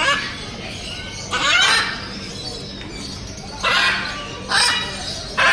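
Five short, loud, harsh bursts: parrots squawking while being misted with a hand-pump spray bottle, with the hiss of the spray mixed in.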